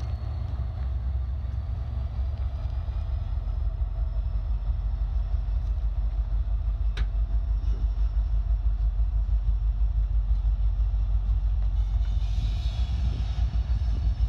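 Union Pacific freight locomotives running past, a steady heavy diesel rumble growing gradually louder, with a faint high whine that slowly rises in pitch. A single sharp click comes about seven seconds in, and a higher hiss joins near the end.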